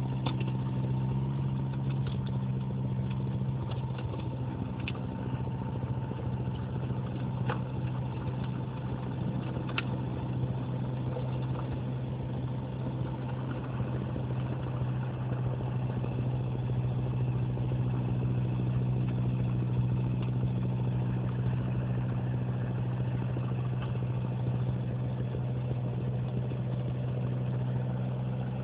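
Valpadana 3014 compact tractor's engine running steadily while driving its front-mounted snow blower, which is throwing snow. A faint high steady tone fades out about halfway through.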